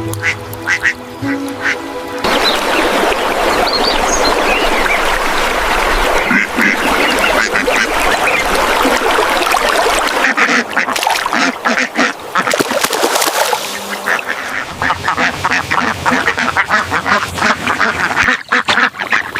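A flock of ducks quacking, many calls overlapping in a continuous chatter that begins about two seconds in, after a short stretch of music.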